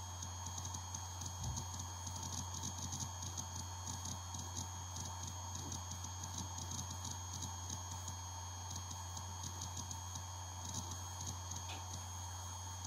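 Samsung MP0402H 2.5-inch 5400 rpm IDE laptop hard drive copying files: its heads seek in rapid, irregular clicks over a steady spindle hum. The clicking is densest in the first half, then thins out, with another flurry near the end.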